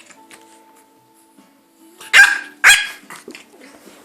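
French Bulldog puppy giving two short, loud barks about half a second apart, about two seconds in, with softer play noises around them.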